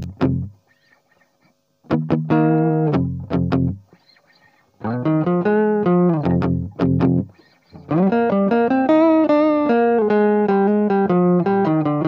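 Classical acoustic guitar playing power chords as a finger exercise. Short chords are cut off by brief silences at first, then the strumming runs on steadily from about eight seconds in.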